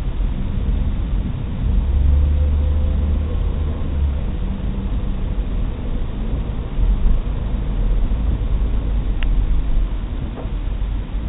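A car driving, heard from inside its cabin: a steady low engine and road rumble that grows louder for about two seconds, starting two seconds in.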